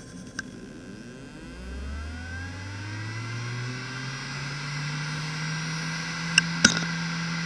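Maxtor Atlas 10K V 10,000 rpm SAS hard drive spinning up: the spindle motor's whine rises steadily in pitch over a few seconds and then settles into a steady hum at full speed. Two sharp clicks come near the end as the drive starts its start-up sequence.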